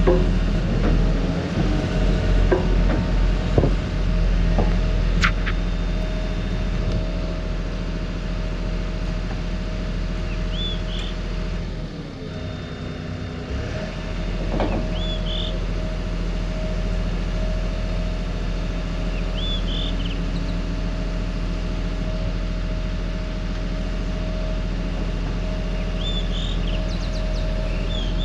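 Komatsu hydraulic excavator's diesel engine running steadily. There are a few clanks in the first few seconds, and the engine note dips and bends in pitch about halfway through as the load changes. A short high chirp recurs every few seconds.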